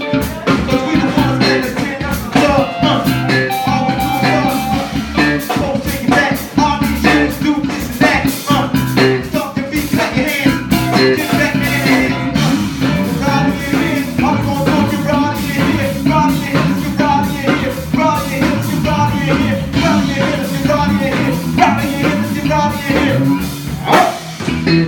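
Live band music: drums, bass and guitar playing together.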